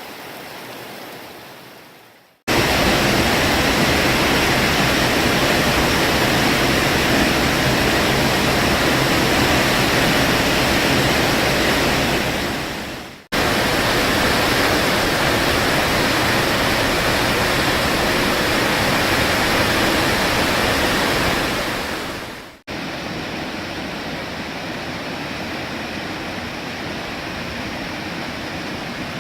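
Steady rush of falling water from Lower South Falls, a waterfall. It fades out and cuts back in loud twice, and is quieter in the last part.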